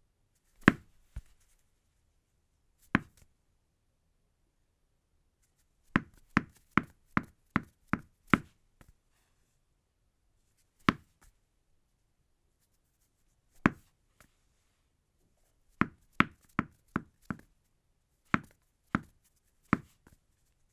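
Tennis ball bouncing, recorded as foley: single bounces with pauses between them, and a few quick runs of five to seven bounces in a row.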